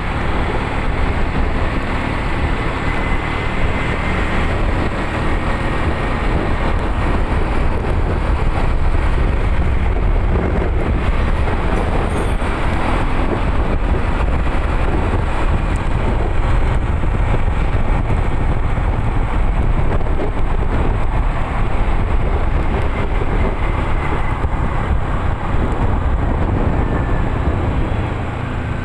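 Steady engine and road noise of a moving bus, strongest in the low rumble, with no horn sounding.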